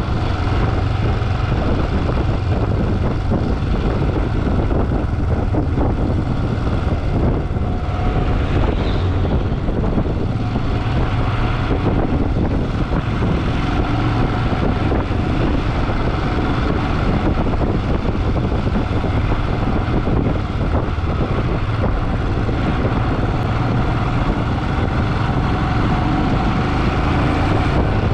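A motorcycle running steadily while riding, its engine sound mixed with even wind and road noise.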